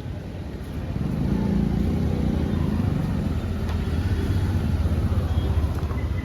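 A motor vehicle's engine running close by, a low rumble that grows louder about a second in and then holds steady.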